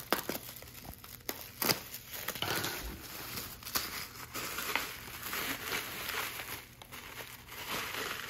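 Packaging crinkling and tearing as an item is unwrapped by hand, with a few sharper snaps, the loudest just after the start and near the two-second mark.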